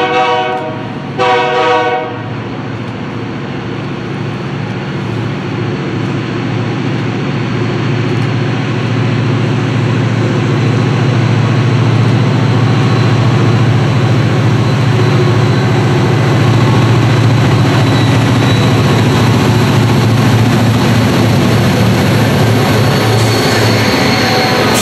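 Two blasts of a diesel locomotive's chime horn at the start, then EMD diesel-electric locomotives working hard at full throttle (notch 8): a steady low engine drone that grows louder as the train approaches and passes.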